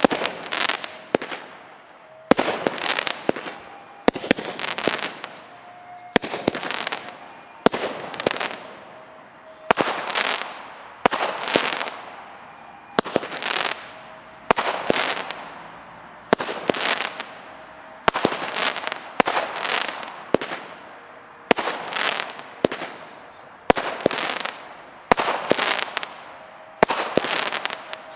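A 49-shot consumer firework battery (cake) firing shot after shot, roughly one a second: each a sharp bang followed by a short crackling burst of red stars.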